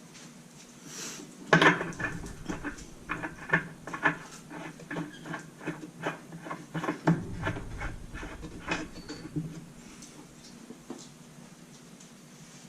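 Metal clinks and taps as a wave washer and nut are fitted onto a washing machine's drive shaft in the drum: one loud clank about a second and a half in, then a run of irregular small clicks until about ten seconds in.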